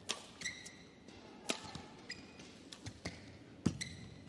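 Badminton rally: rackets striking the shuttlecock with sharp hits every second or two, and court shoes squeaking on the court mat between shots.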